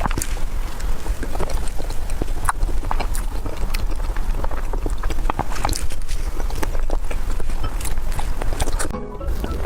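Close-miked eating: irregular wet mouth clicks and chewing of a soft dessert from a bowl.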